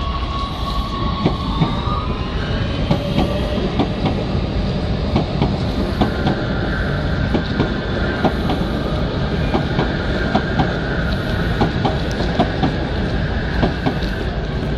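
MX3000 metro train rolling past at close range: a steady rumble with a long run of wheel clicks over the rail joints. Over it runs a high electric whine that shifts in pitch about two seconds in and settles to one steady tone from about six seconds in.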